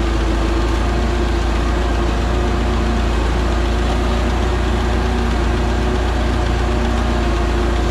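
Iseki PZ73 seven-row rice transplanter running steadily under way, its engine drone and planting mechanism making an even hum with a constant whine.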